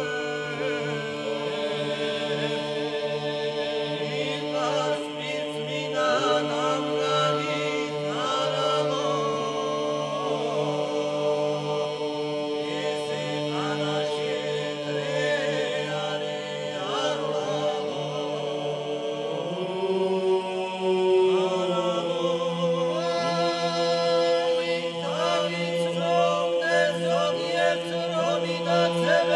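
Georgian men's ensemble singing a folk song a cappella in polyphony: a held bass drone under ornamented upper voices that slide and turn. About twenty seconds in, the drone steps up to a higher held note.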